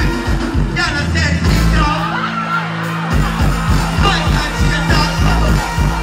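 Live dancehall music played loud through a large sound system, a heavy bass beat with a deejay's voice chanting over it into a microphone. About a second and a half in, the drums drop out, leaving held bass notes, and the beat comes back about three seconds in.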